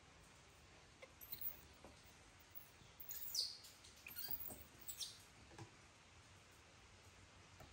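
Faint, high, thin squeaks from a newborn baby monkey: a few short chirps, the loudest about three seconds in and falling in pitch, with a couple of soft taps on the wooden table.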